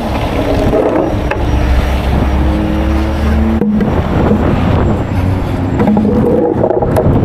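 A 75-ton rotator tow truck's diesel engine running steadily, with a low rumble and a steady hum. The sound shifts abruptly about three and a half seconds in.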